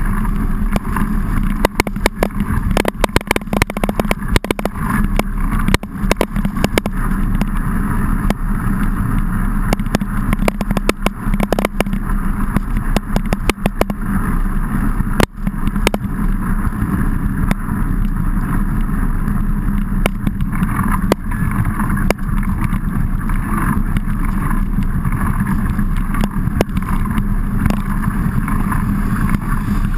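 Steady muffled rumble of a mountain bike ride picked up by a handlebar-mounted camera, with many sharp knocks and taps scattered through it, thickest in the first half.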